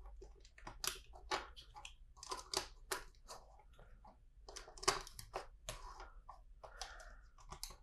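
LEGO bricks and plates being handled and pressed together: a string of irregular small plastic clicks with brief rustles between them.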